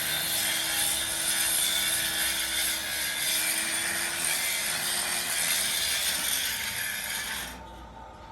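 A power tool's motor running steadily with a hissing, high-pitched noise; its tone falls as it winds down about six seconds in, and the sound stops abruptly near the end.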